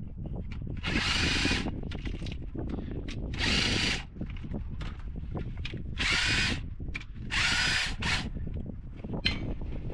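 A cordless power tool, drill-type, whirs in four short bursts of about half a second each, spinning out the rocker arm bolts on a 2015 Camaro's cylinder head.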